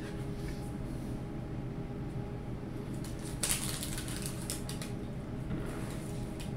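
Light handling noises as a trading card is taken off a scanner: a brief rustling scrape about three and a half seconds in and a few soft clicks after it, over a steady low hum.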